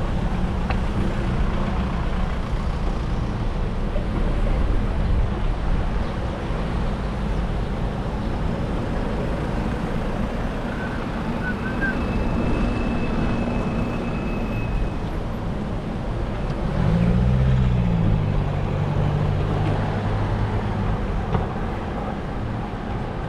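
Steady low rumble of motor traffic, with one vehicle's engine note rising and falling about two-thirds of the way through.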